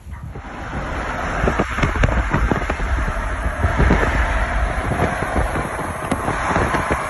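Wind rushing and buffeting on the microphone from a moving vehicle at highway speed, over steady road noise. It comes in suddenly at the start and stays loud, with many low thuds from the wind.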